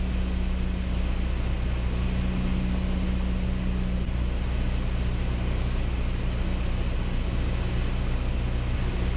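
Piper Cherokee PA-28-180's four-cylinder Lycoming engine and propeller droning steadily at reduced power on final approach, heard from inside the cockpit.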